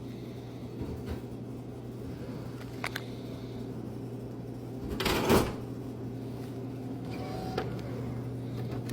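Drink vending machine humming steadily, with a few light clicks, and a loud clatter about five seconds in lasting about half a second as a plastic drink bottle drops into the delivery bin.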